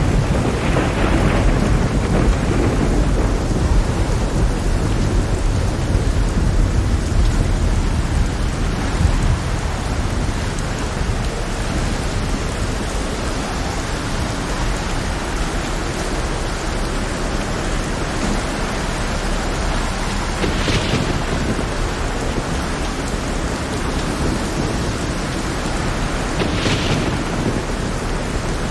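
Heavy rain on a stormy sea, with thunder rumbling heavily through roughly the first third, then easing into a steady downpour. Two brief hissing surges come near the end.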